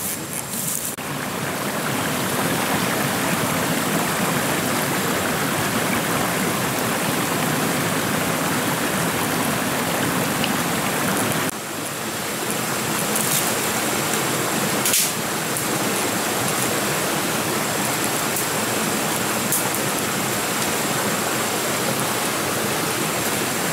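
Shallow rocky forest stream rushing steadily over stones, with a couple of brief knocks partway through.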